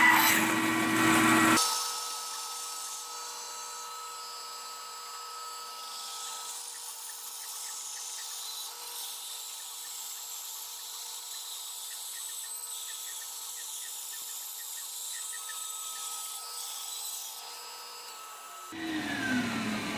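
Bandsaw blade cutting through a log that is turned slowly on a circle-cutting jig: a steady machine whine with the rasp of sawn wood. About two seconds in the sound turns quieter and thinner, losing its low end, then holds steady until near the end.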